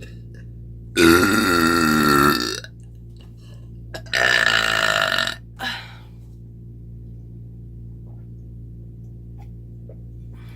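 A woman's loud burps after drinking milk: a long burp about a second in, a second long one about four seconds in, and a short one right after it.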